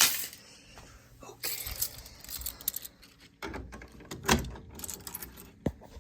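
Keys and small metal hardware being handled: irregular clicks, knocks and rattles, with a sharp click near the end.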